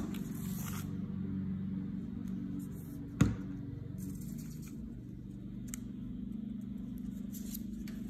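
Hands handling construction-paper cutouts on a wooden tabletop, with one sharp knock about three seconds in and a few faint clicks later, over a steady low hum.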